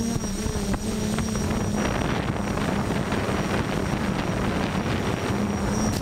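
FPV quadcopter's electric motors and propellers heard from its onboard camera, a wavering hum under a strong rush of wind and prop wash as it flies fast, the motor hum steadying again near the end.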